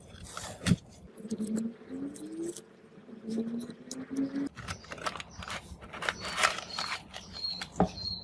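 Masking tape and paper being peeled off the plastic case and metal speaker grille of a radio cassette recorder: crackling, tearing and scraping. In the first half come two runs of short rising squeals as the tape pulls away.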